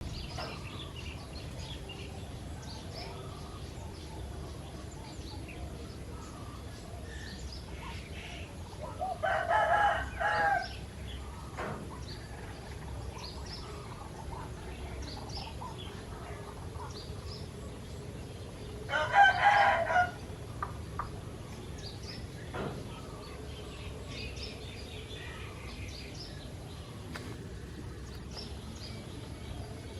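Rooster crowing twice, each crow lasting about a second and a half, about ten seconds apart. Faint chirps of small birds are heard in between.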